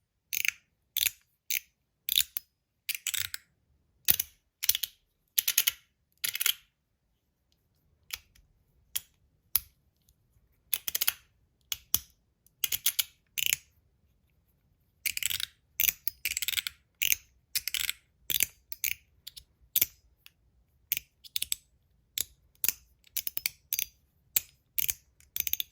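Stainless-steel MOT Groove mechanical slider fidget clicking as its slide is pushed back and forth through its stepped positions. The clicks are sharp and come in quick clusters, fading to faint clicks for several seconds in the middle before growing loud again.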